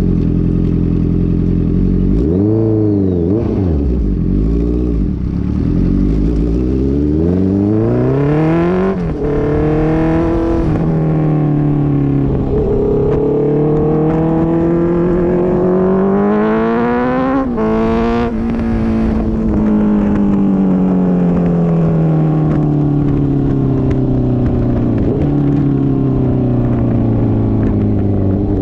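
Honda CB650F's inline-four engine through a Mivv MK3 full exhaust with no catalytic converter, blipped twice, then pulling up through the revs in long rising sweeps with two sharp drops in pitch, and finally winding down slowly.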